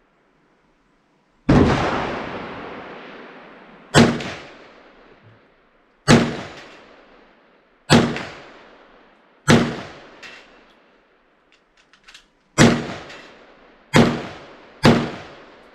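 Kel-Tec PMR-30 pistol firing .22 Magnum rounds, eight shots at uneven gaps of one to three seconds, each with a fading echo. The rounds have been stored five years in a car trunk and go off each time.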